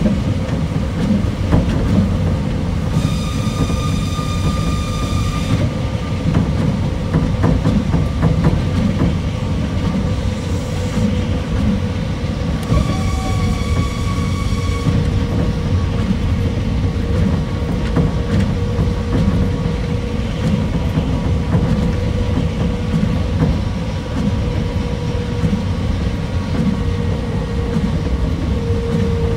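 Osaka Monorail 2000 series straddle-type monorail train running on rubber tyres along its concrete guideway, with a steady low rumble. Twice a high steady tone sounds for a couple of seconds, a few seconds in and again about halfway, and a steady hum joins in the second half.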